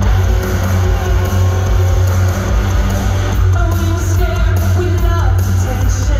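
Rock band playing live through a concert PA, heard from the audience: heavy bass and drums with guitar, and a woman singing a melody that rises and falls.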